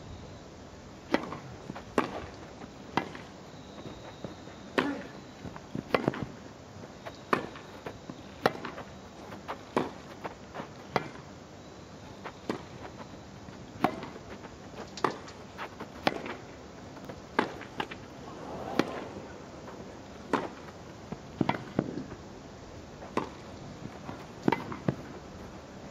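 Tennis ball struck back and forth with rackets in a long rally on a grass court, a sharp pop roughly once a second.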